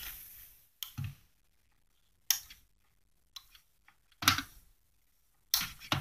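A few scattered clicks and short handling noises as a retractable USB charging cable is pulled out of its reel to full length.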